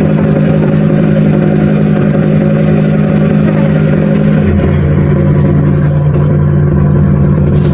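Passenger ferry's engines droning steadily, a loud low hum with a rushing noise over it; the hum's pitch shifts abruptly about halfway through.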